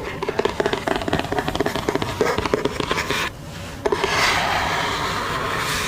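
Fingernails tapping and scratching on a product box in quick, irregular clicks, then, from about four seconds in, a steady rubbing across its surface.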